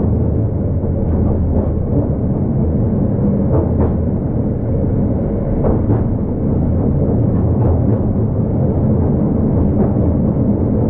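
Vintage tram running along its line: a steady low rumble with a few sharp clacks.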